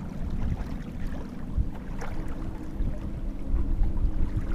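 Wind rumbling on the microphone out on open water, with a steady low engine hum of a distant motorboat coming in about two seconds in.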